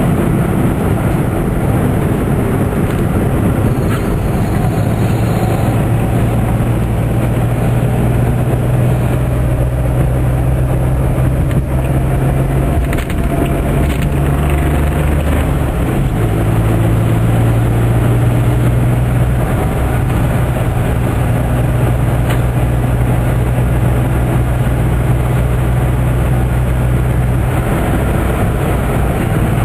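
Interior drone of a 1997 Geo Metro under way: a steady low engine and drivetrain hum with road and tyre noise from a wet road. The engine note shifts about halfway through, then settles again.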